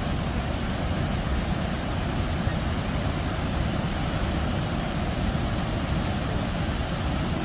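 Water released through a dam's open gates, plunging fast and churning into the concrete basin below: a steady, loud rushing of spillway outflow.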